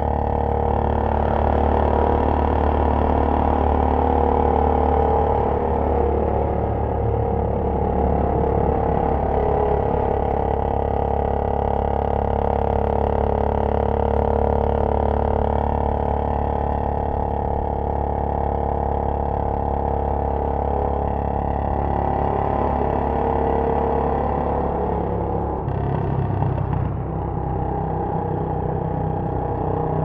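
Royal Enfield Bullet 500's single-cylinder four-stroke engine through a Punjab long-bottle silencer, heard from on the bike, running at a steady cruising pace. Near the end the note gets fuller and lower as the bike enters a road tunnel.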